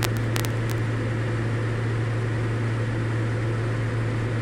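Cockpit drone of a Diamond DA40 light aircraft in flight: the single piston engine and propeller running at a steady cruise setting, an even low hum with airflow noise. A couple of faint clicks come just after the start.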